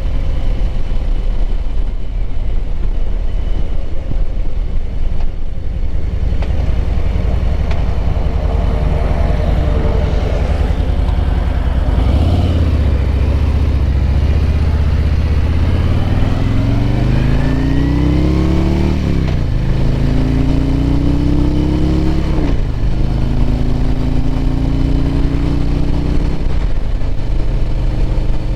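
Harley-Davidson V-twin touring motorcycle under way. The engine note climbs as it accelerates and drops sharply at two upshifts in the second half, over a steady low rumble.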